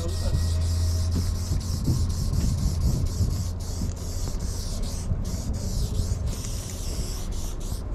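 Aerosol spray-paint can hissing as paint is sprayed onto a train car's metal side, in long bursts with a few brief breaks, over a steady low rumble.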